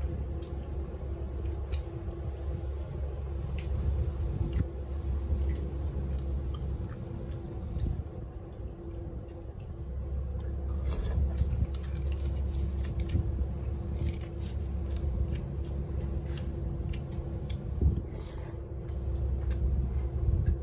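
A person chewing and eating, with many short scattered clicks, over a steady low rumble and a faint steady hum.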